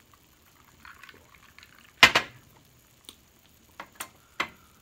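Glass and tableware clinking on a table: one sharp double clink about two seconds in, then a few lighter clicks.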